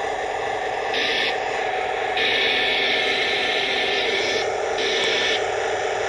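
Remote-control Tiger I model tank running, its built-in speaker playing a steady, humming tank-engine sound effect. A harsher whir comes in three stretches, briefly about a second in, for about two seconds from a couple of seconds in, and briefly near the end, as the tank is driven and turned.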